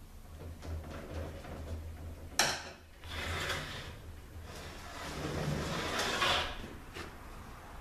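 Parts and hand tools being handled during a transmission teardown: a sharp clack about two and a half seconds in, followed by two stretches of scraping and rubbing, over a steady low hum.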